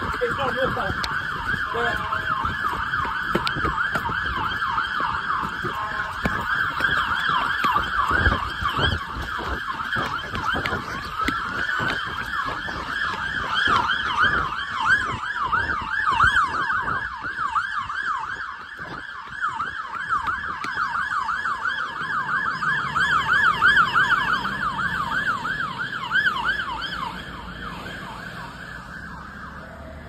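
London Fire Brigade fire engine sirens on a fast yelp, several overlapping, with a slower wail gliding across them around the middle. The sirens weaken over the last few seconds.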